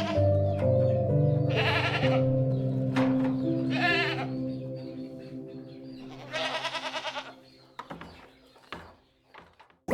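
Soft instrumental music of sustained, piano-like notes fading out, with three quavering animal bleats laid over it, about 1.5, 4 and 6.5 seconds in; the last bleat is the longest.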